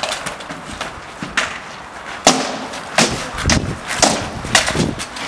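Rattan swords striking shields and armour in SCA heavy fighting: a rapid, irregular series of sharp blows, the loudest a little over two seconds in, with several close together near the end.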